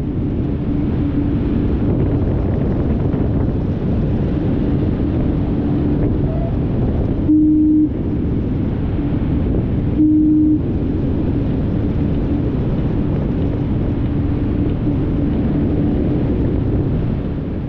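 Wind rushing over the microphone of a paraglider in flight, accelerated on the speed bar. A steady low tone hums underneath and briefly gets louder twice.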